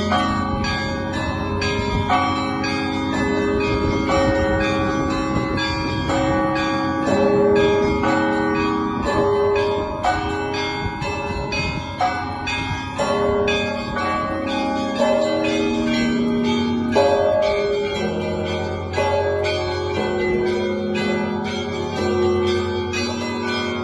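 Russian Orthodox church bells ringing together: small bells struck in quick succession over the deep, lingering tones of larger bells.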